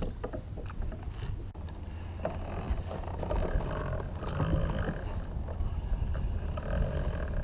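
Water sloshing against a fishing kayak's hull, with a steady low rumble of wind on the microphone.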